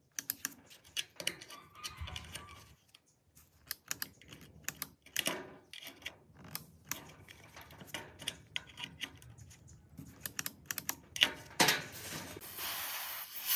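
Scattered clicks and knocks of hands working an old mitre saw and its power plug, with no motor starting up; a scraping rustle near the end.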